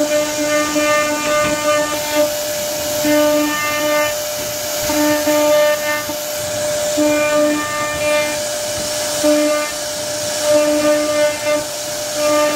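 CNC router spindle running at speed while its bit carves a relief pattern into a wooden door panel. It makes a steady high whine, with a lower, harsher tone that comes and goes every second or so as the cutter bites into the wood.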